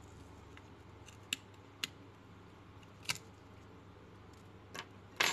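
Five short sharp clicks and taps from small phone parts and a tool being handled on a hard work surface, spread over the few seconds, with the last and loudest near the end.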